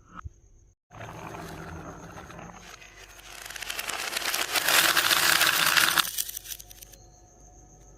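Marbles rolling and rattling down a wooden Haba slope marble track. The clatter swells from about three seconds in to a loud, dense rattle and dies away about six seconds in.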